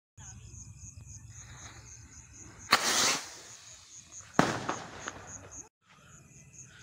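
Small firework rocket fired from a homemade battery-ignited launcher: a sudden loud whoosh about three seconds in, then a sharp bang about a second and a half later that trails off.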